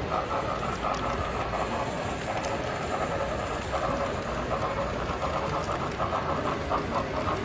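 Model freight trains running on a model railway layout: a steady, rhythmic clatter over a low rumble.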